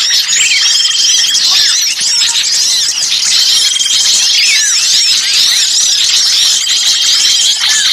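Many small songbirds calling noisily at once, a dense overlapping mass of quick rising and falling chirps with a few rapid trills, without a break. It is a layered bird-lure recording of agitated small birds, played to attract wild birds.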